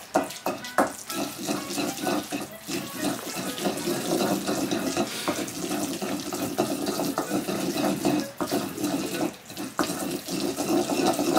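Kitchen tap running water into a sink, a steady splashing rush with small knocks through it.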